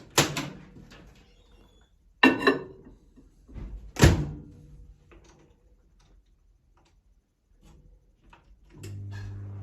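Miele microwave oven: three loud clunks about two seconds apart, typical of its door being handled, then near the end it starts running with a steady low hum.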